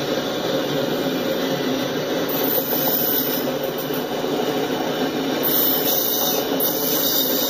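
Autorack freight cars rolling past: the steady noise of steel wheels running on the rails.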